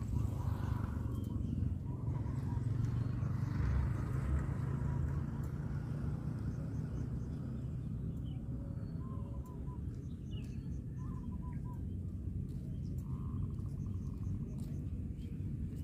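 Open-air ambience: a steady low rumble, with small birds chirping now and then and a few short chirps in the second half.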